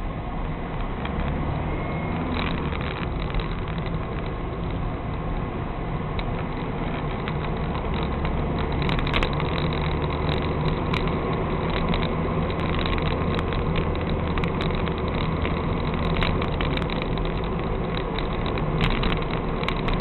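Car engine idling steadily, heard from inside the cabin through a dashcam microphone, with scattered sharp clicks and knocks starting about halfway through.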